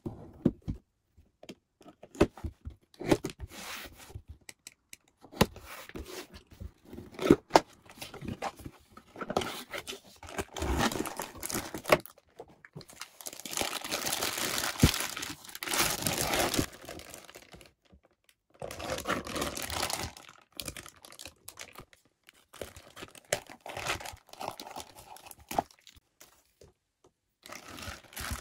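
Hands unpacking a figure: a cardboard box is handled and opened, then thin clear plastic bags are crinkled, rustled and torn as the figure parts come out. The noise comes in irregular bursts with sharp clicks and crackles, broken by a few brief pauses.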